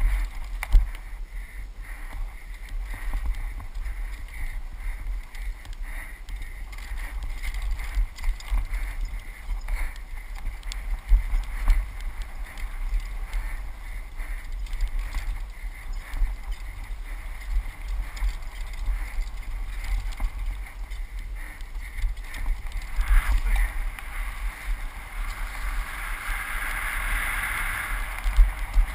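Helmet-camera audio of a mountain bike riding down a rooty forest trail: wind rumbling on the microphone, with frequent knocks and rattles from the bike over roots and bumps. A brighter hiss builds in the last few seconds.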